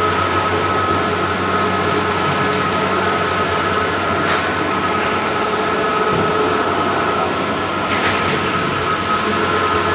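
Bluewin outdoor large-format digital printer running: a steady mechanical hum with a fixed whine, and a short hiss about every four seconds.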